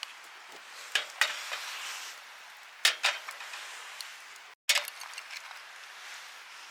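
Cooking gear being handled: a handful of sharp metallic clinks and knocks of pot and utensils, in small clusters, over a steady background hiss.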